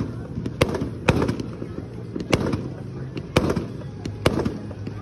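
Aerial fireworks going off in a distant display: about ten sharp bangs at uneven intervals, some in quick pairs.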